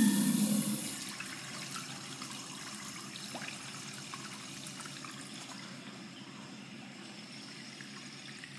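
Wall-hung urinal flushing: a sudden rush of water right at the start, loudest for the first second, then easing into a steady run of water through the bowl.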